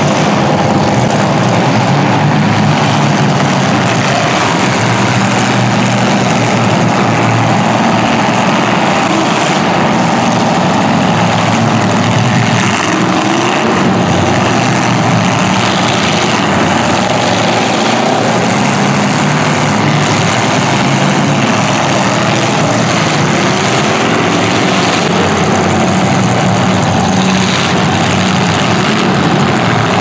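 Several demolition derby cars' engines running loudly together, revving up and down.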